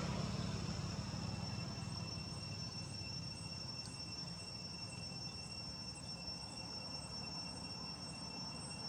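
Insects calling: a steady, unbroken high whine at two pitches, over a low background rumble.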